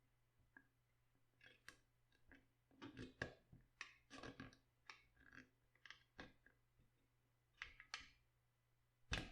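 Quiet, irregular crisp crackles and clicks of cabbage being handled, with one sharper knock near the end.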